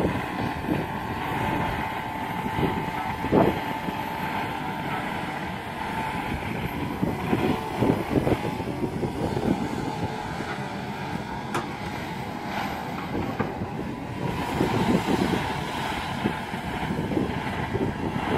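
Kobelco SK210LC-10 long-reach excavator working: its engine and hydraulics run steadily with a constant whine, over irregular clanks and knocks from the boom, arm and bucket as it swings.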